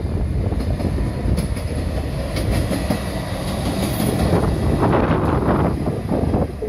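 Heisei Chikuho Railway single-car diesel railcar running across a concrete railway bridge, its wheels rumbling on the rails. It is loudest about four to five seconds in, as it passes close by.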